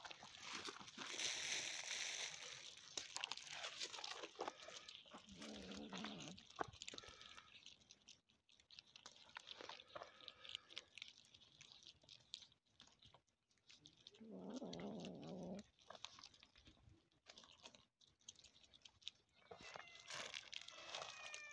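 Several cats chewing dry kibble: faint, quick crunching and clicking. There are two low rumbling sounds, about six and fifteen seconds in, and a short falling meow near the end.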